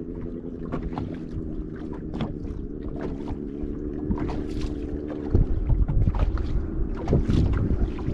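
A boat motor hums steadily, with scattered sharp clicks over it; the hum fades about five seconds in as a louder low rumble of wind on the microphone takes over.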